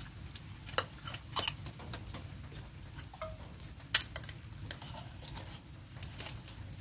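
A metal spoon clinks against a stainless steel bowl while beef shanks are scooped out of it. The clinks come at irregular intervals, and the sharpest is about four seconds in.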